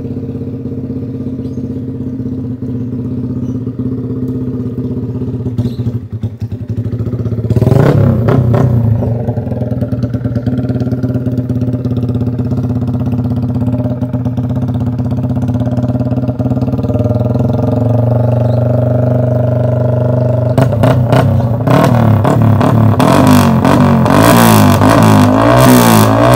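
Modified Yamaha R15 V3 single-cylinder engine idling, then blipped once about a third of the way in. It then holds at a higher speed, and near the end it is revved up and down repeatedly while being tuned.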